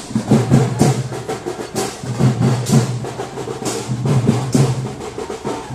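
Drums playing percussion music: a steady beat with a sharp, bright stroke about once a second and quicker, deeper beats in between.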